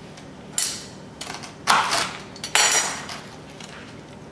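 A chef's knife cutting crisp ladyfinger cookies on a wooden cutting board: three sharp knocks about a second apart, the middle one the loudest.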